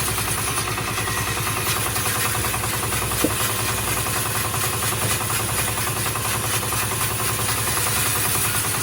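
A workshop machine running steadily, with a fast, even pulse and a small click about three seconds in.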